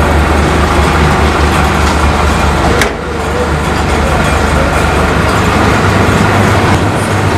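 Ice-candy freezing machine running: a loud, steady mechanical hum with a strong low drone. A sharp click about three seconds in, with a brief dip in level.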